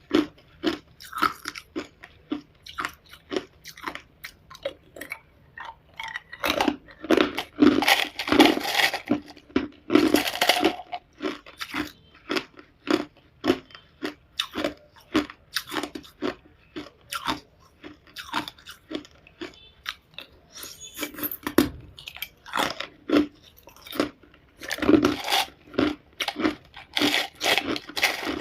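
A person biting and chewing hard ice cubes close to the microphone: a steady run of sharp crunches, about two or three a second, with louder, denser bursts of crushing at times.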